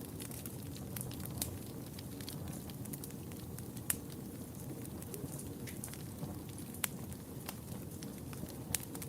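Wood fire burning in a fireplace: a steady low rumble of flames with scattered sharp pops and crackles, the loudest about four seconds in and again near seven seconds.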